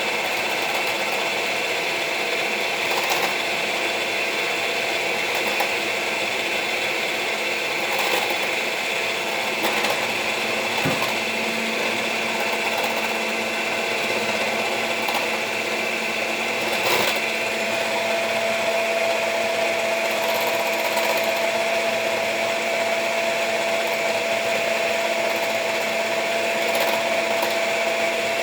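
Electric mixer running steadily, whipping banana and honey into a thick foam, with a motor whine and a few brief knocks.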